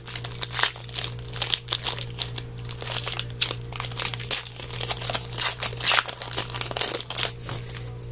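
Wrapper of a pack of hockey trading cards being torn open and crinkled: a dense run of crackles that eases off near the end.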